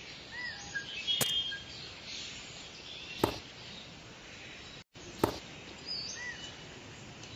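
Faint bird chirps over a steady hiss, with a sharp click about every two seconds.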